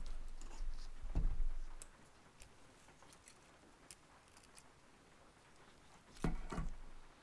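Quiet handling of small parts and tools: scattered light clicks, with soft knocks about a second in and again, twice, near the end.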